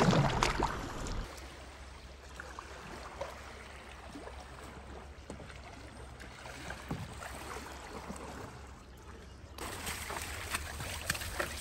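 Gentle water sounds of an inflatable stand-up paddleboard being paddled on calm sea: soft paddle splashes and drips. A louder rush of noise comes right at the start, and the sound picks up again near the end.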